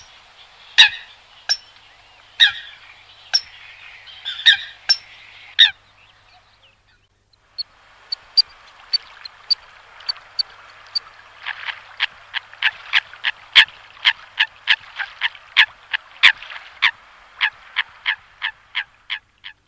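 Coots calling: short, sharp calls about one a second, a brief break about six seconds in, then the calls resume and from about halfway come faster, about three a second in a running series. It is a coot-call recording of the kind played to lure the birds in.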